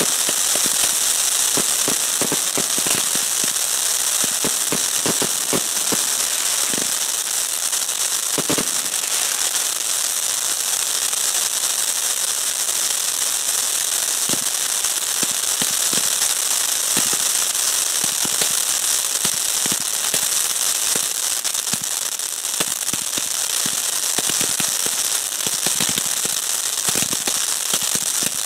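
Fireworks going off: a steady high hiss of spraying fountains under many sharp pops and crackles, thickest in the first nine seconds and again near the end.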